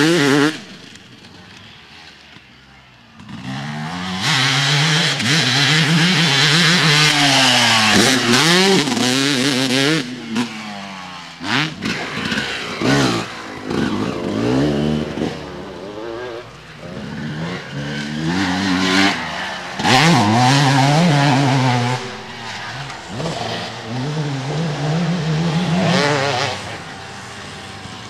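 Honda CRF450 motocross bike's single-cylinder four-stroke engine being ridden hard, its note rising and falling over and over as the throttle opens and closes and the rider shifts gears. It drops away for a couple of seconds near the start, then comes back loud.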